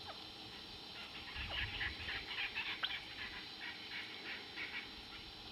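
Red-billed spurfowl calling: a rhythmic series of short notes, about four a second, starting about a second in and spacing out near the end.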